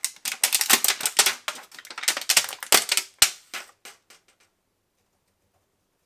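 Thin clear plastic clamshell pack crackling and clicking as it is prised open, a fast irregular run of sharp crinkles and snaps that stops about four seconds in.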